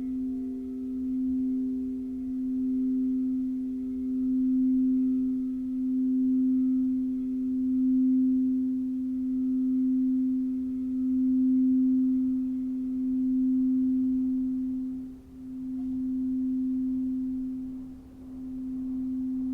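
Crystal singing bowl sounding one sustained low tone with faint higher overtones, its loudness swelling and fading in slow pulses about every one and a half to two seconds, with two deeper dips in the second half.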